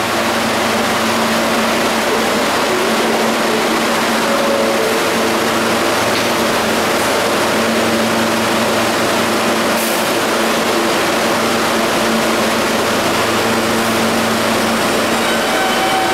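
R160 subway train standing at the platform with a steady electrical hum. Near the end it starts to pull out, and the traction motors begin a rising whine.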